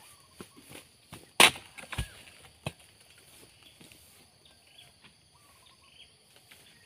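Steel harvesting chisel (dodos) on a pole chopping into the frond bases and bunch stalk of a young oil palm: a few sharp strikes in the first three seconds, the loudest about one and a half seconds in.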